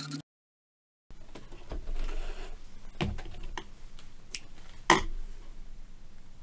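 Handling sounds at a sewing machine after a seam: a soft rustle of fabric being drawn out, then a few sharp clicks and snips as the threads are cut with scissors, the loudest about five seconds in.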